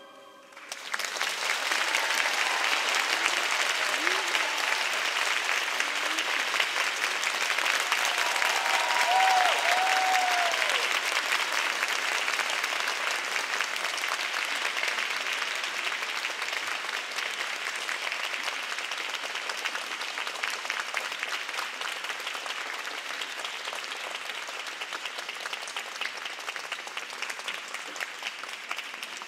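Audience applauding, starting about a second in and slowly fading, with a couple of voices calling out over the clapping.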